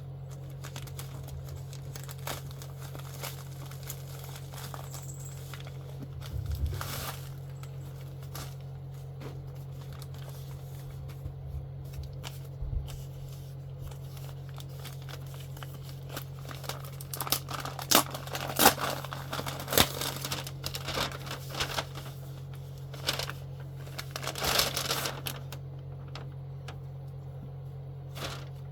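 Packaging being undone by hand, crinkling and tearing in irregular handling noises that grow busier in the second half, over a steady low hum.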